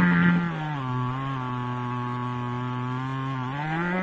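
Two-stroke chainsaw running at high revs, fitted in a homemade chainsaw-mill jig and ripping a log lengthwise. Its pitch drops about half a second in and holds lower as the chain bites into the wood under load, then climbs again near the end.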